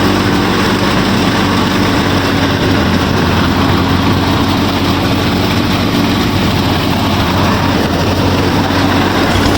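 Steady, even engine-like drone from the miniature tractor and thresher machine running, with a low hum that shifts a little near the end.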